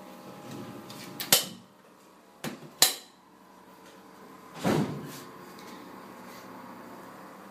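Handling knocks on the button setting machine's metal parts: a sharp knock about a second in, a lighter tap and another sharp knock near three seconds, then a duller thump near five seconds.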